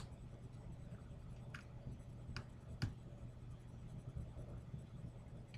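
A few light clicks of a lock pick working the pin stacks of a 5-pin euro cylinder lock, just before the lock opens.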